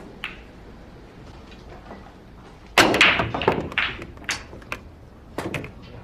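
Pool break shot: the cue ball hits the racked pool balls with a loud crack about three seconds in, followed by a rapid scatter of ball-on-ball clicks and knocks for about two seconds, and a few more clicks near the end. A single light click comes just after the start.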